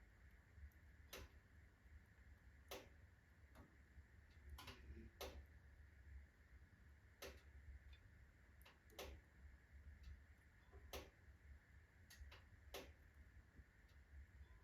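Birch-log fireplace fire crackling faintly as it burns down slowly: sparse, irregular sharp pops about once a second, over a low steady hum.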